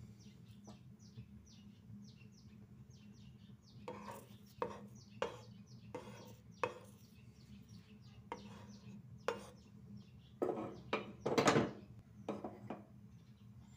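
Peeled garlic cloves dropped one by one into a heating dry pan, each landing as a short, sharp knock: about a dozen irregular knocks, the loudest near the end. Faint high bird chirps repeat over a low steady hum in the first few seconds.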